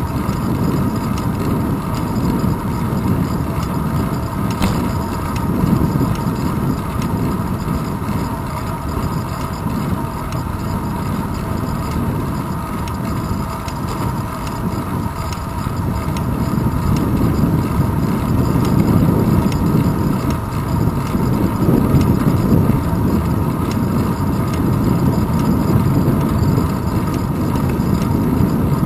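Wind rumble and road noise from a bicycle rolling along a paved path, picked up by a handlebar-mounted camera: a steady, loud, low noise that swells a little in the second half.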